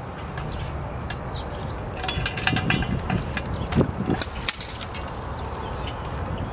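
Light metallic clicks and clinks as pliers and steel pins work on the yellow hitch frame of a 3-point post hole digger, scattered through the middle seconds over a steady low rumble.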